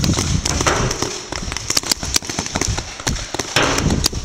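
Paintball markers firing during a game: many sharp pops from several guns at once, irregular and overlapping, some louder than others.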